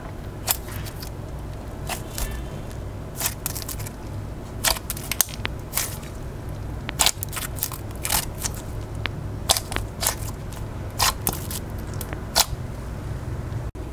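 Milk-tea-coloured slime packed with black foam beads being squeezed and pressed, giving sharp crackling pops and clicks at irregular intervals, about one or two a second, over a low steady hum.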